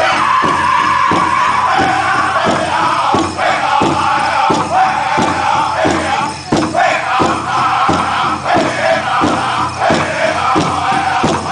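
Powwow drum group playing a chicken dance song: high-pitched singers in unison over a steady beat on a big drum, about two beats a second.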